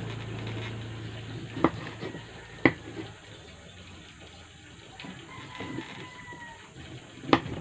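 Kitchen knife cutting on a wooden chopping board: a few sharp knocks of the blade on the board, the loudest near the end, with softer taps between.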